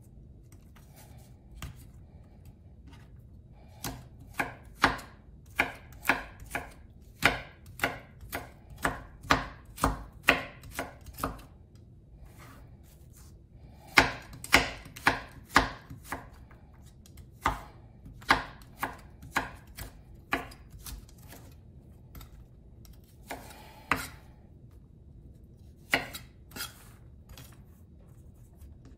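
Chef's knife slicing carrots into thin strips on a bamboo cutting board: sharp knocks of the blade on the wood, about two a second in runs, with short pauses between runs.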